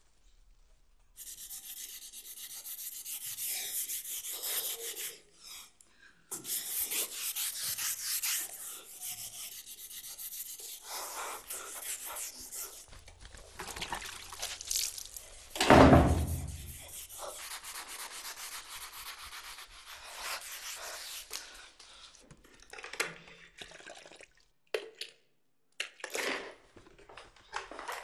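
Hand scrubbing of a tiled floor: a repeated rough scraping and rubbing, broken by short pauses, with one loud thump a little past the middle.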